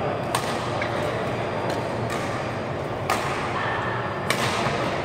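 Badminton rackets striking a shuttlecock in a doubles rally: three sharp hits, about a third of a second in, about three seconds in and just past four seconds, with fainter hits in between, over the steady noise of a large hall.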